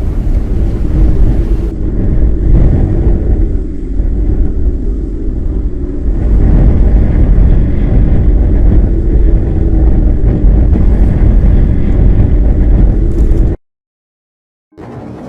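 Loud, low rumbling roar of storm wind buffeting the microphone during a tornado, cutting off suddenly near the end, followed by about a second of silence and then a quieter new sound.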